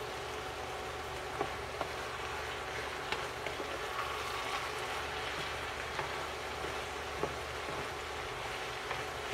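Cabbage, carrots and bell pepper sizzling in an oiled frying pan while a wooden spatula stirs and turns them: a steady hiss with a few sharp ticks scattered through it.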